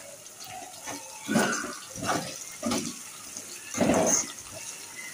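Potato pieces, green chillies and curry leaves deep-frying in hot oil in a kadhai: a steady sizzle with four louder surges of bubbling and sputtering, the last and longest about four seconds in.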